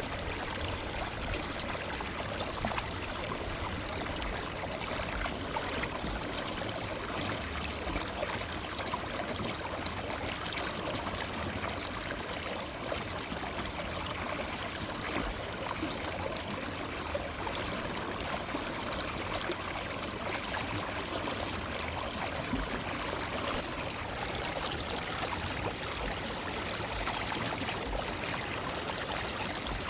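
Forest river flowing steadily over rocks: a continuous even rush of running water with small gurgles and trickles.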